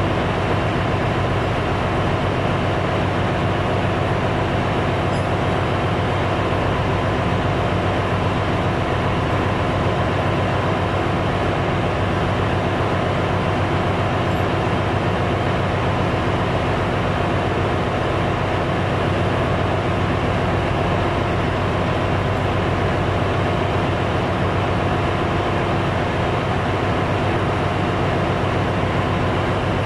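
Ship's engine-room machinery running steadily: a loud, constant drone with several steady hum tones underneath and no distinct knocks or changes.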